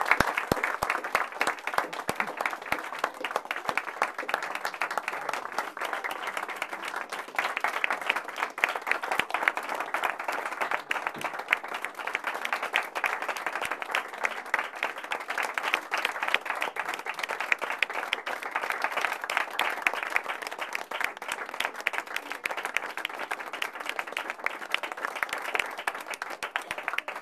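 Audience applauding: many hands clapping together, sustained throughout with small swells and no break.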